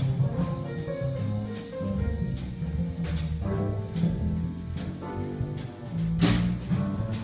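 Jazz band instrumental passage: upright double bass and piano playing, with regular ticks from the drum kit about once a second and a stronger hit about six seconds in.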